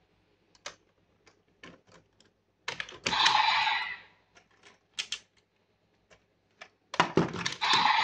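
Hard plastic clicks and clacks as the Fever Slot Raise Buckle is pulled out of a DX Desire Driver toy belt and the toy is handled. Two short noisy bursts stand out, one about three seconds in and another near the end.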